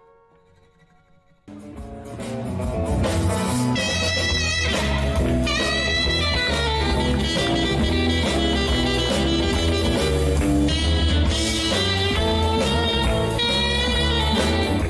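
Instrumental background music that starts suddenly about a second and a half in, after a brief quiet gap.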